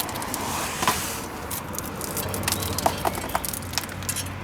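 Scattered light clicks and taps over a faint steady hum.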